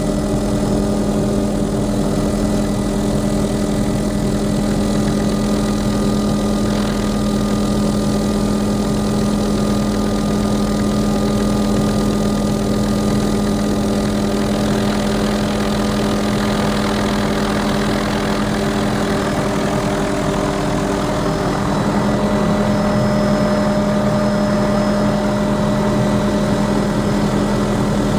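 Steady drone of a helicopter's engine and rotor, made up of several held tones, getting slightly louder about three-quarters of the way through.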